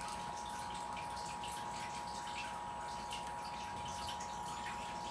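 Faint scattered clicks and taps of a plastic action figure and a small accessory being handled and pushed into place, over a steady continuous tone.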